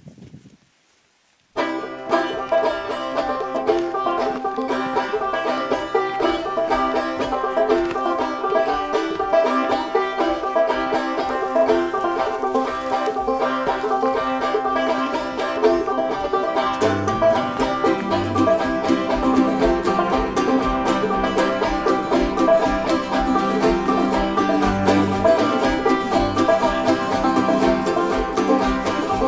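Bluegrass music: a banjo-led instrumental starts about a second and a half in, after a moment of silence. A steady low beat joins about halfway through.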